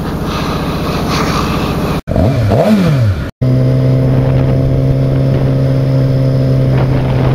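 Suzuki GSX-R600 inline-four engine accelerating for about two seconds. After an abrupt cut its pitch rises and falls briefly, and after a second cut it runs at a steady, constant pitch.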